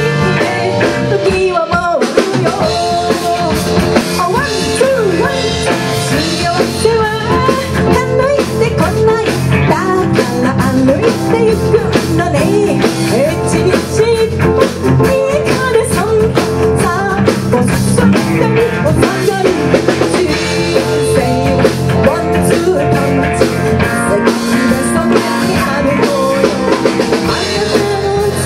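A live rock band playing, with a woman singing lead over electric guitars and a drum kit.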